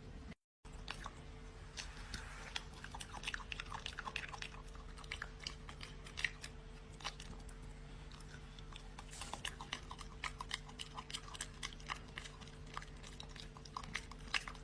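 A dog chewing and crunching food: irregular crunches and clicks of its teeth, many per second, with short pauses.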